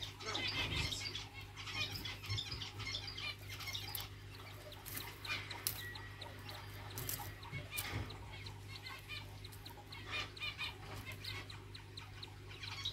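Chinese dwarf quail (king quail) giving quick high chirping calls in several short bursts, with clicks and rustling as they move through the straw bedding, over a steady low hum.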